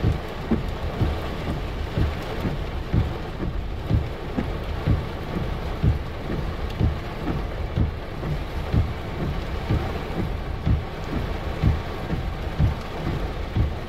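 Heavy rain pouring steadily during a thunderstorm, with irregular short, low thumps close to the microphone, roughly one a second.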